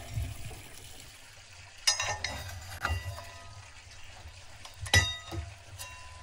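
Wood fire burning in the round firebox of a metal-topped stove, with a low rumble under a few sharp clinks and pops, the loudest about two and five seconds in, some of them ringing briefly.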